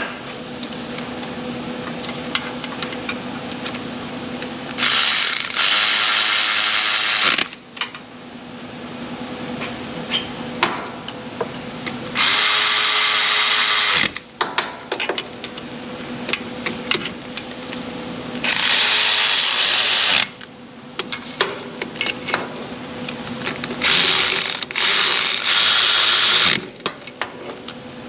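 Cordless electric ratchet running bolts down in four bursts of about two seconds each, with clicks of the tool and socket between the runs.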